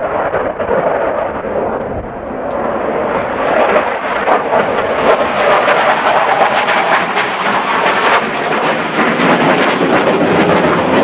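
Saab Gripen C fighter's single Volvo RM12 turbofan jet engine, a loud roar with crackling that builds about two seconds in and stays strong.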